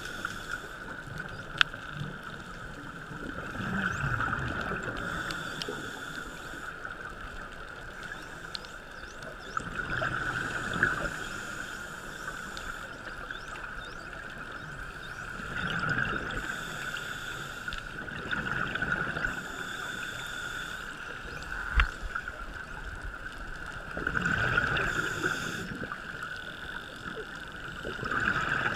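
Underwater sound picked up through a camera housing: a scuba diver's regulator breathing, with a burst of exhaled bubbles about every five to six seconds over a steady hiss, and two sharp clicks.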